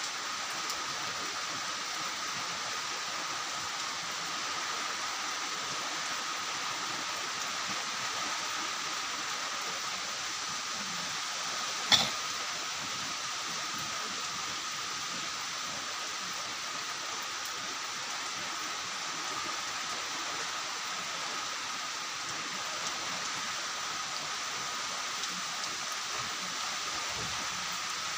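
Steady hiss of heavy, unbroken typhoon rain with wind through the trees, under a thin steady high tone. A single sharp knock comes about twelve seconds in.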